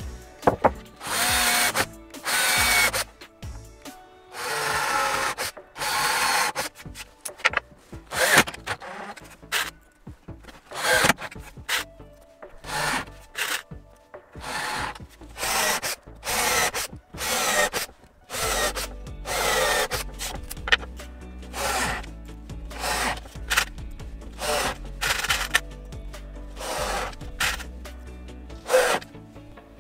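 Cordless drill-driver driving wood screws through a plywood top into a pine frame: a string of short whirring runs of the motor, one per screw, the first two longer and the rest quick, each cut off as the screw seats.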